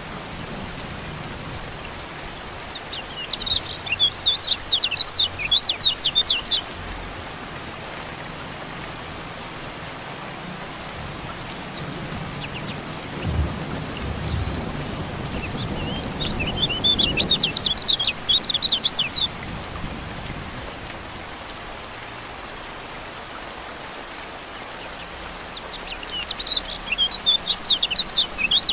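Steady rain with a white-eye (kecial kuning) singing three bouts of rapid, high chirping, each about three seconds long. A low rumble of thunder comes about halfway through.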